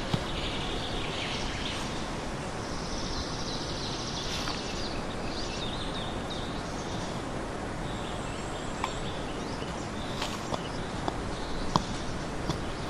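Hand digging in forest soil with a small metal hand shovel: scraping and scooping of dirt, with a few short sharp knocks in the last few seconds as the blade strikes the ground. Faint high chirping over a steady outdoor background.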